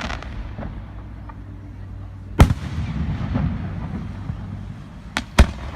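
Fireworks display: aerial shells bursting with sharp bangs, one about two and a half seconds in and two in quick succession near the end, with rumbling and faint crackle between them.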